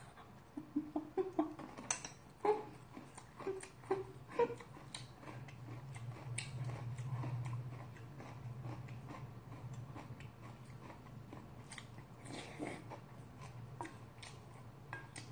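Chewing and biting food close to the microphone, with short clicks of a metal spoon against a stainless steel bowl. A low steady hum is heard in the middle.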